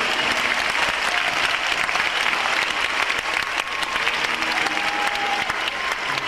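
A large arena crowd applauding steadily, a dense, even patter of many hands clapping.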